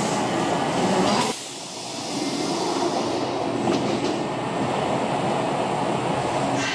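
Electric train noise: about a second in, one train's loud running noise cuts off abruptly and gives way to the steady running and wheel noise of another train at an underground platform, with a couple of sharp clicks.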